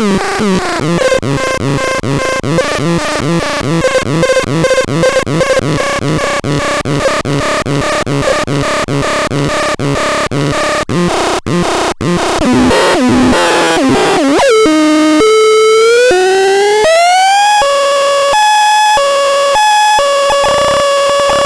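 WAXISON B 603 electronic siren/horn cycling through its tone patterns: a fast pulsing warble for about the first 14 seconds, then a rising glide and a high-low alternating two-tone pattern.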